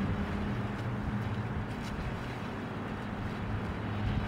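Steady low engine hum under the rush of wind on the microphone.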